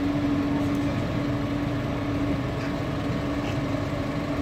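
Armoured police vehicle's engine idling steadily: a constant hum with one steady tone over it.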